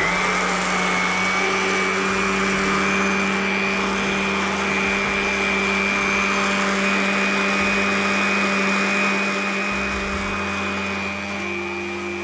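Anex electric countertop blender running steadily at constant speed, blending a thick mixture of chikoo (sapodilla), sugar and fresh cream. It gets slightly quieter near the end.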